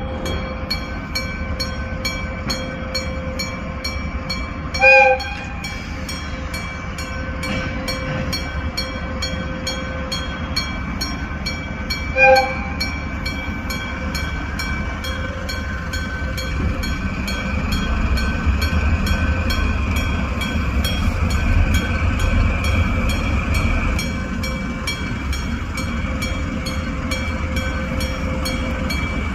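Gong-type electric level-crossing bell ringing with a quick, even beat of strikes, over the low rumble of a diesel locomotive that grows louder in the middle. Two short horn toots about five and twelve seconds in.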